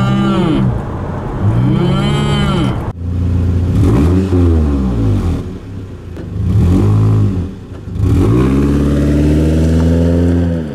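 Toyota Tacoma's four-cylinder engine accelerating through the automatic's gears, pitch climbing and dropping back about four times. Its exhaust gives a droning "dying cow" tone, which the owner puts down to rusted cheap piping and crummy welds. It is heard first inside the cab, then from outside the truck.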